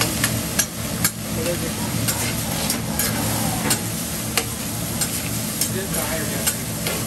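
Fried rice sizzling on a teppanyaki steel griddle while a metal spatula stirs it, with sharp irregular clicks and scrapes of metal on the hot plate about once or twice a second.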